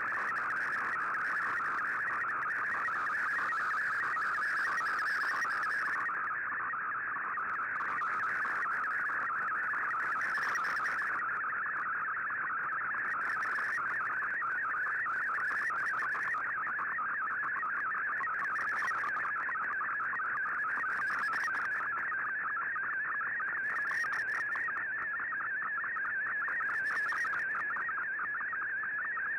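Digital-mode data signal from a shortwave broadcast, heard through a communications receiver: a steady band of rapidly changing warbling tones over faint hiss.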